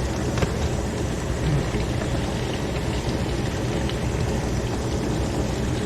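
Frigidaire dishwasher running: a steady pump-motor hum with water rushing and splashing inside it.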